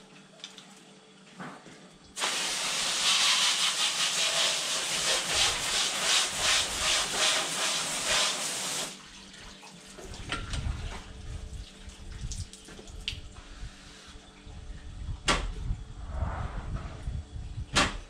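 Water rushing under pressure for about seven seconds, starting and cutting off abruptly as if a valve were opened and shut. Afterwards there are low rumbling handling noises and a couple of sharp knocks near the end.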